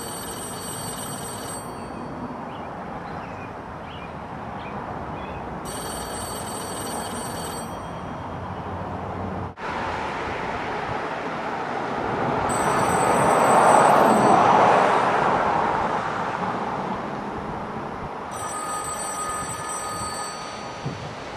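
A payphone ringing in four bursts of about two seconds each, roughly six seconds apart. A broad rushing noise swells and fades a little past the middle and is the loudest sound.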